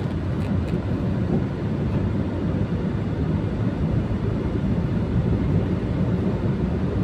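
A steady low rumble of road, tyre and wind noise, with the engine under way, from a Mitsubishi Strada diesel pickup driving along at road speed.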